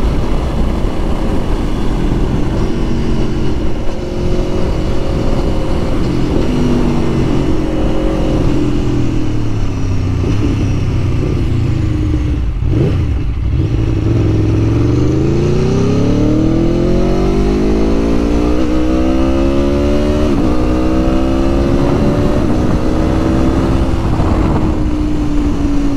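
2021 Aprilia Tuono Factory's V4 engine under way, with heavy wind noise on the microphone. Its revs fall slowly for about twelve seconds, then climb sharply as it accelerates, and settle to a steady cruise for the last several seconds.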